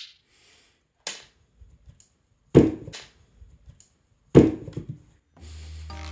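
Three dull thumps on a wooden floor, the second and third much louder than the first, with faint rustling between them. Light background music comes back near the end.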